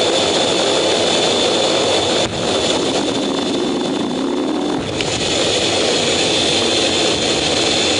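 Fighter jet's engines at full power, heard from inside the cockpit during a catapult launch off a carrier: a steady loud noise with a high whine. About two seconds in the sound dips suddenly, then a rising tone comes through for a couple of seconds before the steady noise returns.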